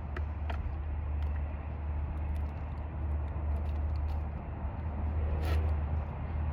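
A few light metallic clicks and taps of chainsaw parts being handled, over a steady low rumble.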